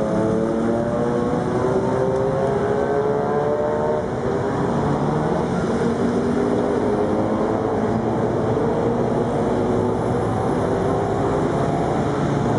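City street traffic: vehicle engines running steadily, their pitches slowly drifting as they pass.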